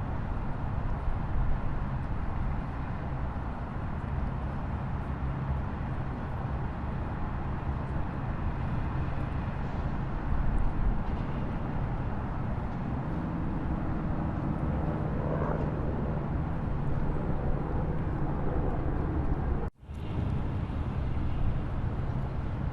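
Waterfall: a steady rush of falling water, heaviest in the low range. The sound drops out for an instant near the end and then resumes.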